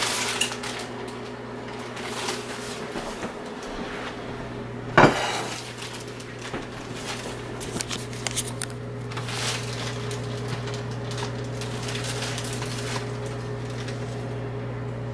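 Kitchen dishes and utensils clinking and knocking, with one loud knock about five seconds in, over a steady low hum.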